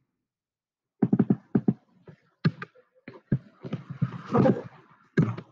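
A person's voice muttering indistinctly under their breath in short broken syllables, with a breathy hiss partway through.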